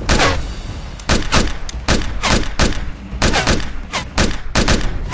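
Handgun gunfire: about a dozen shots in quick, uneven succession, each with a short ringing tail.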